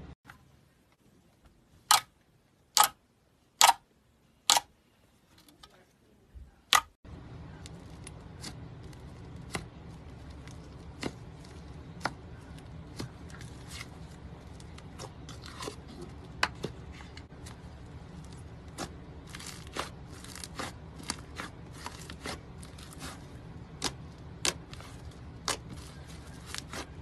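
Five loud, sharp pops less than a second apart over near silence, then, after an abrupt change, many small irregular crackles and pops over a steady low hum: crunchy slime being pressed and popped.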